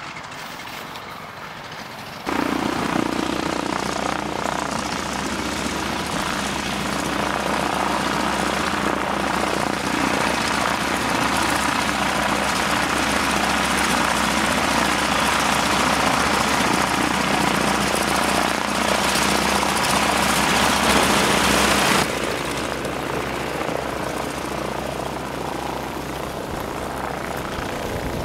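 Grumman G-164 Ag-Cat biplane's piston engine and propeller running at display power in flight, a steady droning hum. It gets suddenly louder about two seconds in and drops back suddenly about six seconds before the end.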